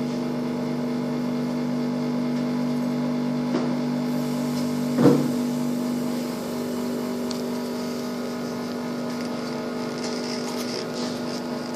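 Steady electric hum of a running motor on the refrigeration setup, with a single sharp knock about five seconds in, after which one of the lower hum tones drops out.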